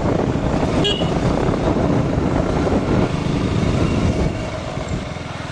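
KTM Duke motorcycle engine running as the bike rides along a street, with a brief horn toot about a second in. The engine sound eases off somewhat after about four seconds.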